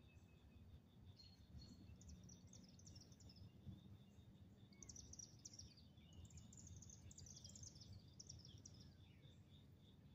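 Faint outdoor ambience: birds chirping in quick runs of high notes, over a steady, high, pulsing trill and a low rumble.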